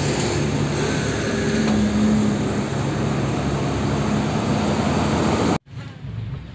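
Steady engine-like rushing noise with a faint low hum, which starts sharply and cuts off suddenly about five and a half seconds in.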